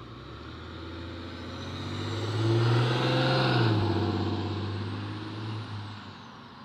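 A motor vehicle driving past: its engine swells to its loudest about halfway through, drops in pitch as it passes and then fades away, with a faint high whistle above it.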